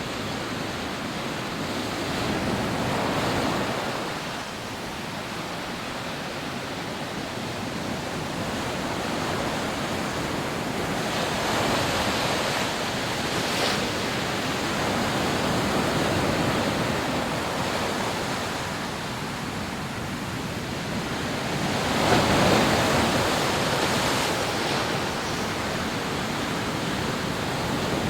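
Rough sea surf breaking on a sandy beach: a continuous wash of rushing water that swells in surges as waves break, the loudest about three quarters of the way through.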